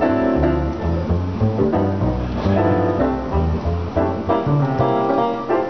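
Jazz duo playing: an upright double bass plucked in a string of separate low notes under a digital piano's chords and melody.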